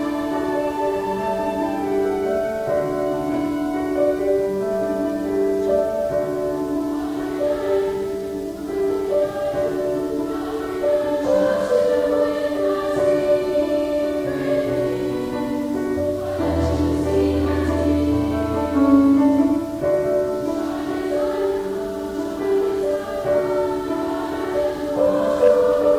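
Middle-school choir singing long held notes in full chords, accompanied by a student string orchestra; a deep bass note comes in about two-thirds of the way through.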